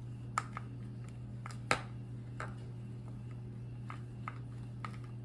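Irregular small clicks and ticks of a hand screwdriver turning wood screws into a wooden perch end piece and dowel, a louder click about a second and a half in, over a steady low hum.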